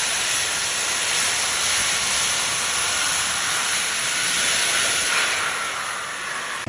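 Several small jet turbines on a one-person flying craft running together: a steady high-pitched hiss with a faint whine in it, easing off slightly near the end.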